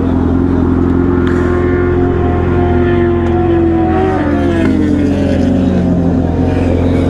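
Motorcycle engines idling steadily, with an engine note that holds level and then falls in pitch about four seconds in, as a vehicle goes past on the road.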